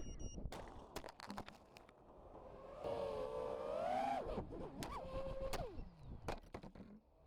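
FPV quadcopter's brushless motors whining, the pitch rising and falling with throttle and then sliding down as they spool down. Sharp knocks and clicks come in the first second or so and again near the end, typical of the quad hitting things in crashes.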